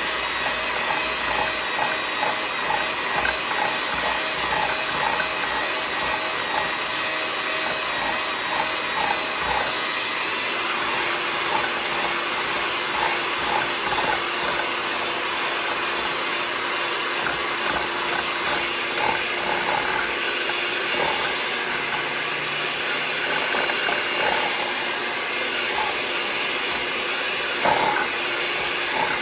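Electric hand mixer running steadily, its beaters whipping instant coffee, sugar and hot water in a ceramic bowl, with light clicks throughout and one louder knock near the end.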